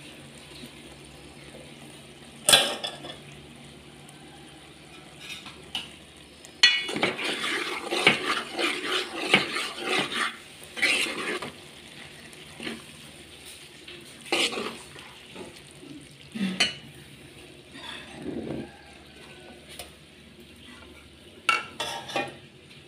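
Steel spoon stirring a thick sprouts curry in a metal pot, scraping and clinking against the pot. There is a single clink about two and a half seconds in, a busy run of stirring for several seconds from about a third of the way through, then separate knocks of the spoon near the end.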